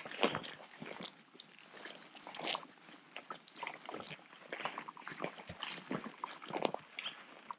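Footsteps crunching on rough ground as people hike down a hill, an uneven run of steps.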